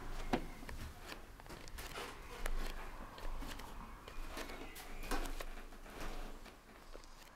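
Barefoot footsteps on wooden floorboards, several soft steps spaced about a second apart.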